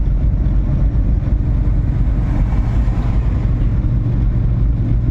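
A small engine running steadily at an even speed, with a low hum and a rough rumble beneath it.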